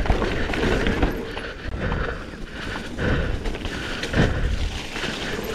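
Propain Rage 3 CF downhill mountain bike descending a rough dirt track: continuous wind rush and rumble on the camera microphone, with tyres and frame rattling and several knocks over bumps.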